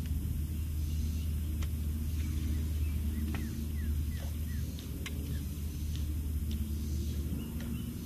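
Steady low rumble, with a few faint, short high chirps and clicks scattered over it.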